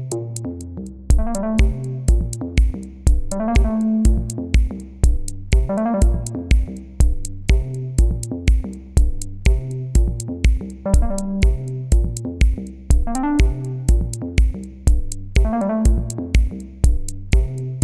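Electronic background music with a steady drum-machine beat and synthesizer chords.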